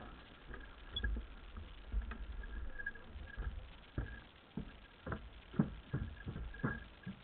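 Irregular light knocks and clicks, a few louder ones in the second half, over a low rumble of wind on the microphone.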